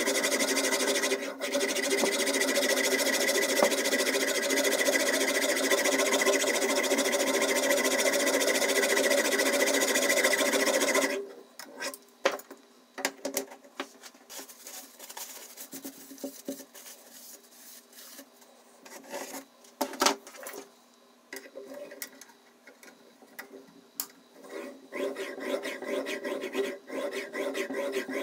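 Diamond whetstone on a guided knife sharpener's arm stroked back and forth along a steel knife blade: a steady rasping scrape. It cuts off abruptly about eleven seconds in, giving way to scattered light clicks and knocks as the stone is changed, and the scraping starts again, quieter, near the end.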